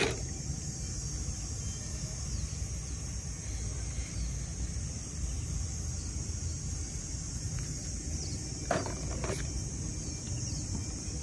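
Steady high-pitched chirring of insects outdoors over a low rumble, with two light clicks about nine seconds in.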